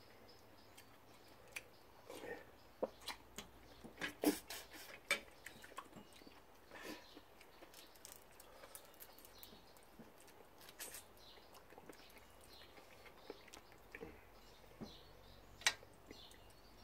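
People eating: chewing and mouth smacks, with irregular small clicks and crackles of cooked prawns being peeled by hand.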